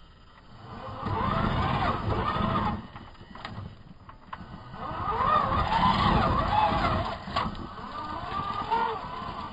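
Traxxas TRX-4 RC crawler's Castle 3800 kV brushless motor and drivetrain whining under two bursts of throttle, the pitch rising and falling as it climbs rock, with a couple of sharp knocks.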